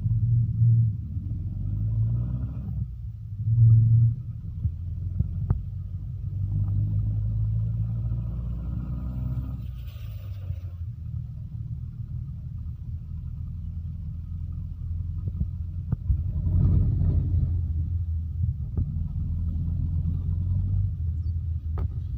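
Engine of the vehicle being ridden in, heard from inside as a steady low rumble whose pitch rises and falls as it speeds up and eases off, swelling louder a few seconds in and again about two-thirds of the way through.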